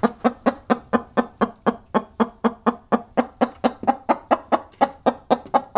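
Chicken clucking: a fast, even run of short clucks, about four a second.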